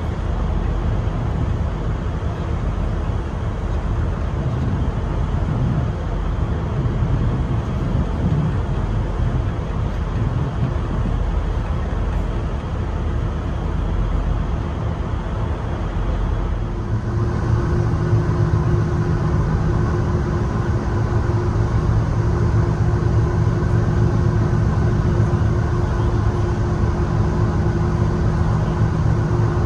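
Steady low rumble of a running vehicle engine. A little over halfway through, an even machine hum with several held tones comes in and the sound grows slightly louder.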